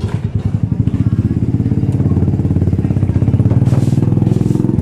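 Motorcycle engine running close by at low revs: a steady, rapid, even low pulsing.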